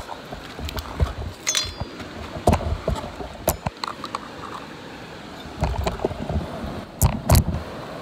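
Handling noise of gear and a towel being set down on rock: irregular rustles, knocks and thumps, the loudest bumps near the end, over a steady rush of falling water.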